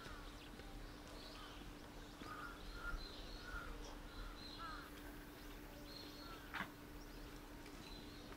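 Birds calling: a string of short, repeated calls, faint, over a steady low hum.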